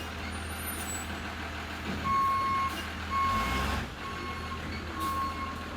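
A vehicle's reversing beeper sounding a steady high beep about once a second, starting about two seconds in, over a low engine rumble that swells briefly in the middle.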